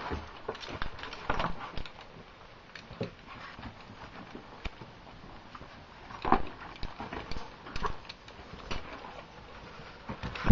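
A caver's gear and movement during the descent: irregular clacks, scrapes and rustles, with a few louder knocks a few seconds apart.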